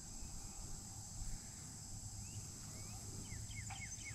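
A faint, steady high-pitched insect chorus. Near the end, a bird calls a quick run of short falling whistled notes, about four a second.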